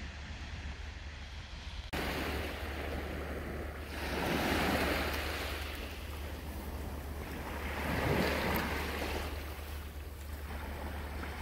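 Small sea waves washing up onto a sandy shore, swelling twice as they break, with a steady low wind rumble on the microphone.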